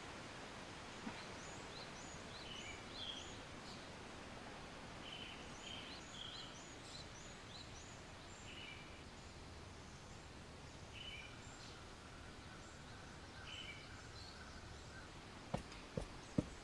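Outdoor ambience: small birds chirping in short repeated calls over a steady hiss. Near the end, a few sharp footsteps begin on pavement.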